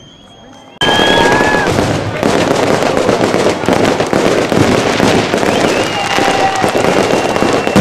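Fireworks display: after a quiet moment, a dense, continuous barrage of bangs and crackling begins abruptly about a second in, with a few whistling tones over it.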